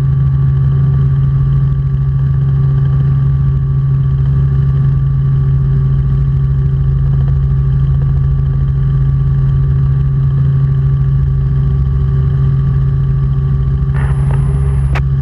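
Robinson R44 Clipper II helicopter in flight, heard from the cabin: a loud, steady low drone of rotor and engine with a few fixed tones above it. A short click and a brief high tone come near the end.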